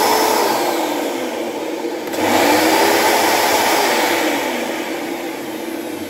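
Karcher NT 70/2 wet/dry vacuum's suction motor running on a test run after a motor replacement. About two seconds in, the sound dips and comes back up louder, then slowly eases off.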